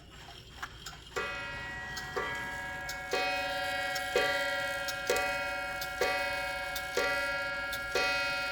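Waterbury clock's spring gong struck by its hammer eight times, about once a second, each stroke ringing on into the next as the clock strikes nine. The gong rings freely now that the spring no longer touches the back wall. Light ticking of the clock before the first stroke.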